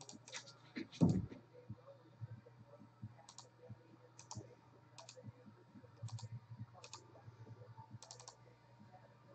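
Scattered clicks on a computer keyboard, roughly one a second, over a low steady hum, with a soft thump about a second in.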